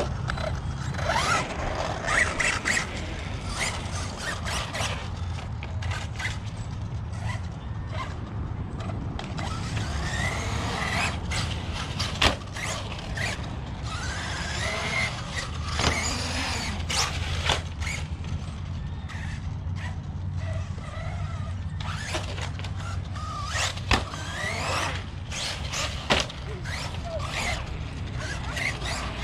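1/8-scale ARRMA Notorious brushless RC car being driven hard on concrete: its motor whine rising and falling as it speeds up and slows, with tyre squeals and scattered sharp knocks from landings and impacts, the loudest about 12 s and 24 s in.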